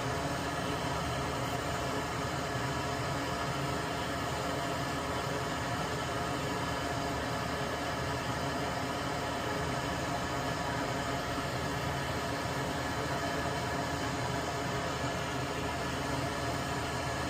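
Steady mechanical hum and hiss of a small machine running without a break, with several faint steady tones in it.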